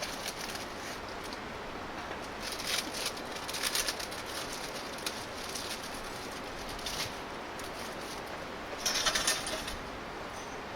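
Wood campfire burning over a steady hiss, with scattered bursts of crackle, the loudest about nine seconds in.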